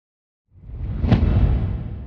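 Cinematic whoosh-and-impact transition sound effect: a low rumble swells in, peaks in a sharp hit about a second in, and its deep booming tail fades away.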